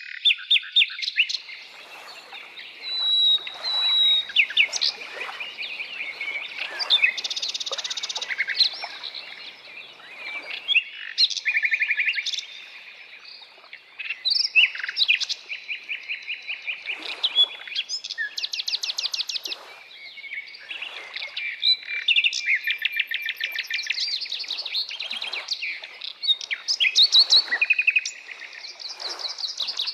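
Several songbirds singing and calling together in a continuous chorus of chirps, short whistles and fast rattling trills.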